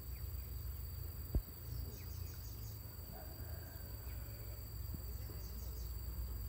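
Insects calling: a steady high-pitched drone, with short runs of rapid chirps every few seconds. Underneath is a low rumble, and a single click comes about a second and a half in.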